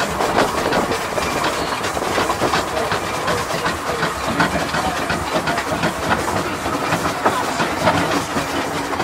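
Narrow-gauge steam train running, heard from the carriage behind the locomotive: a steady rattle with many quick clicks from the wheels and coach, along with steam hiss.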